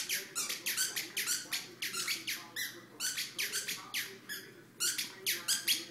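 Dog chewing a squeaky toy, setting off rapid repeated squeaks, about three or four a second, with a couple of short pauses.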